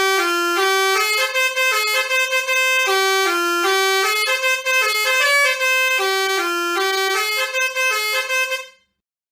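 Indonesian 'telolet' bus horn, a multi-tone musical air horn, playing a quick melody of short notes. The same phrase repeats three times, and the horn cuts off near the end.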